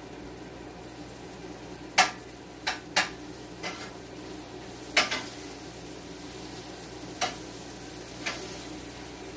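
A utensil stirring food in a skillet on the stove, knocking sharply against the pan about eight times at irregular intervals, the loudest clacks about two and five seconds in, over a low steady frying sizzle.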